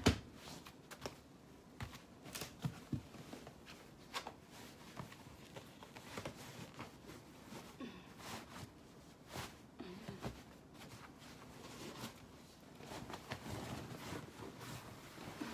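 Quiet rustling of a bed sheet being handled and smoothed over a mattress, with scattered light knocks and footsteps and a sharper click right at the start.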